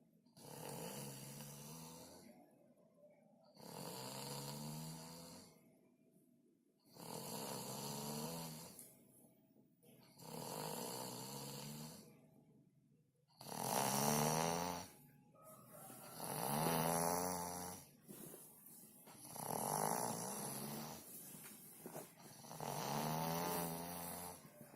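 Snoring in sleep: eight slow, even snores about three seconds apart, each a low pitched buzz, the later ones louder.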